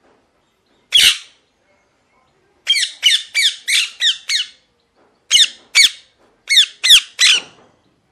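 Young parakeet squawking in short, harsh calls that each drop in pitch. One call comes about a second in, then a quick run of six at about three a second, then five more in two groups near the end.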